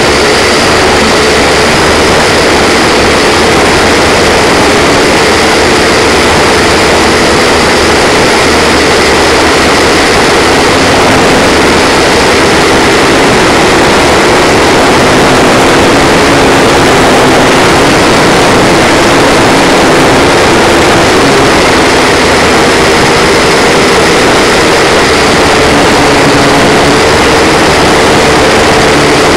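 Blade 180QX micro quadcopter's four electric motors and propellers buzzing loudly in flight, heard right beside them from the onboard camera. The pitch wavers up and down as the throttle changes.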